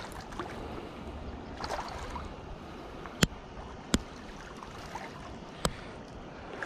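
Hooked rainbow trout splashing at the surface of shallow river water, over the steady wash of the river. Three sharp clicks come in the second half, louder than the splashing.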